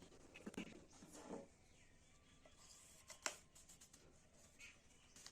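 Near silence: faint room tone with a few quiet ticks and one sharper click a little over three seconds in.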